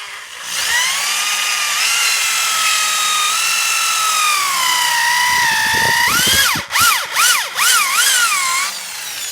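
Electric drill motor whining under load as it bores into a workpiece, its pitch sagging slowly. Near the end the pitch swoops up and down several times before the drill stops.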